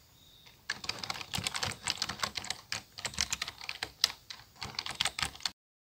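Typing on a computer keyboard: a rapid, uneven run of key clicks that starts just under a second in and stops about five and a half seconds in.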